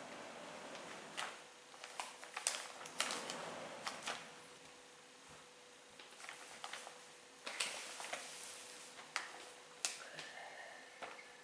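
Plastic cat-litter bag crinkling and rustling in irregular bursts as a kitten squirms and plays inside it, with many sharp little crackles.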